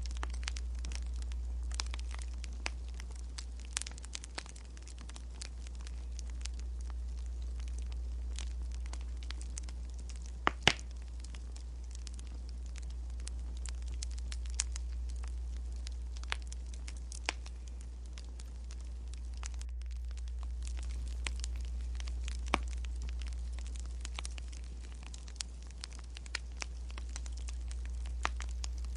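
Crackling wood fire: irregular sharp pops and snaps, the two loudest close together about ten seconds in, over a steady low rumble that slowly swells and fades.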